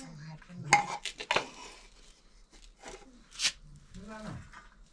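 Low, broken talk in a small room, with a few sharp clicks and a short hiss in between.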